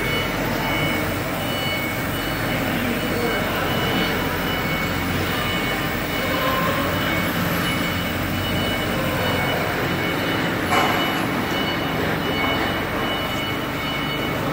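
CNC stone engraving machine running while its laser head marks a photo into a black granite plaque: a steady hiss of machine noise with faint high whining tones, and a single click about eleven seconds in.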